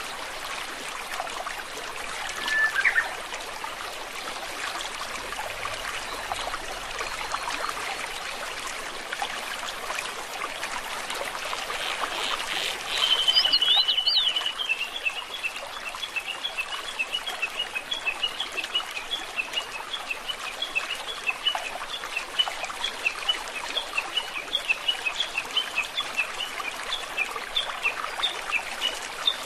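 Steady sound of flowing water, with a bird call about three seconds in, a loud trill about halfway through, and then a long run of short chirps, a few a second, to the end.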